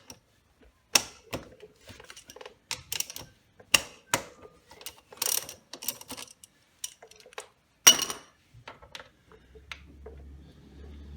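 Irregular metallic clicks and clinks of hand tools and sockets being handled while the motorcycle's front wheel is taken off. A faint low hum comes in near the end.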